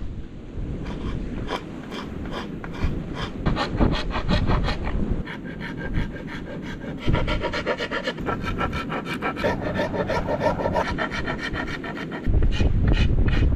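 Wooden speargun stock being worked by hand with a file: quick, even back-and-forth strokes of metal on wood, several a second, taking on a higher squeaky edge from about five seconds in. Wind rumble on the microphone comes in suddenly near the end.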